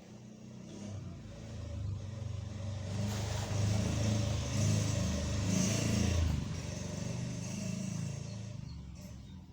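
A motor vehicle passing by, its engine growing louder to a peak about two thirds of the way through and then fading away.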